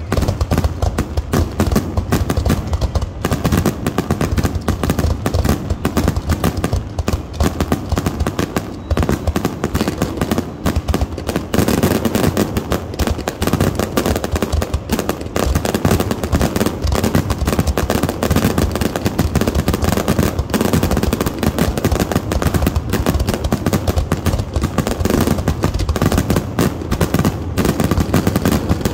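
Fireworks going off in a rapid, continuous barrage of bangs with no real pauses between them.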